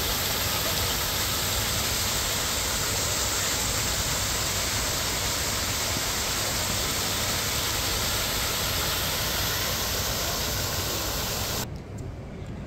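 Water from an artificial waterfall pouring down a rock face, a loud steady rush. It cuts off suddenly near the end, leaving a fainter background.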